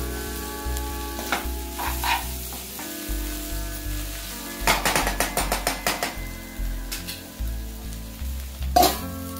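Steel spatula scraping and stirring spiny gourd pieces frying in a nonstick pan, with a quick run of scrapes about five seconds in. Background music with a steady bass line plays underneath.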